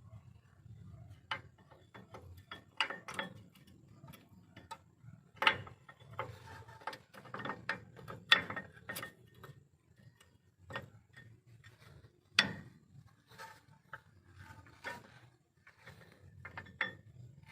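Irregular metallic clicks and clinks with a few sharper knocks, as disc brake pads and their steel retaining clips are fitted into a caliper bracket.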